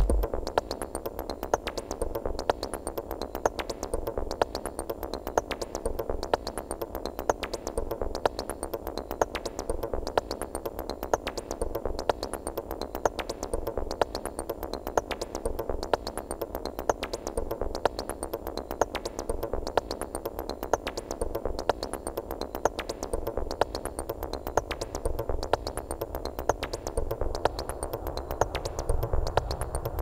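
Korg Volca Sample playing a stripped-back techno loop with the heavy kick dropped out: fast, steady ticking percussion over a sustained synth-like drone. Near the end, a tone rises slowly in pitch as a knob is turned, and the loop builds back up.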